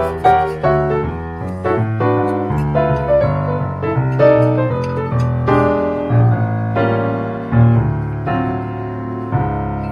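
Background piano music: a melody of separate notes over held low notes.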